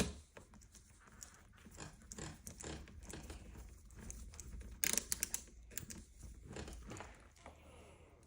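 Metal lock parts and screws being handled and screwed onto a door lock's back plate: scattered clicks and scrapes, with a sharper run of clicks about five seconds in.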